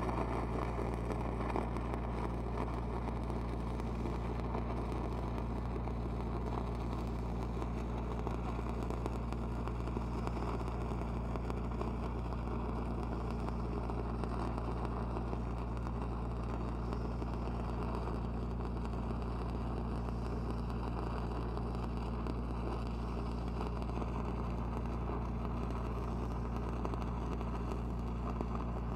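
Stick-welding arc crackling steadily as a 5/32-inch E8010 rod burns in a downhill cap pass on steel pipe. Underneath runs the steady drone of the Lincoln SAE-300 engine-driven welding machine.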